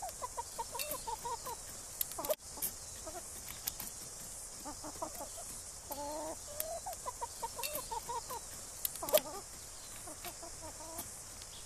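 Domestic hens clucking in runs of short, soft notes, with scattered sharp taps in between.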